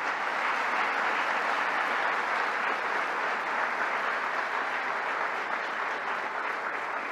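Large audience applauding steadily, the clapping at full strength from the start and easing off slightly near the end.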